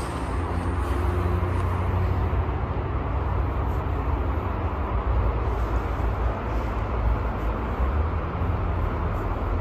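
Steady low outdoor rumble, with faint scrapes of a metal spoon scooping snow into a glass mug.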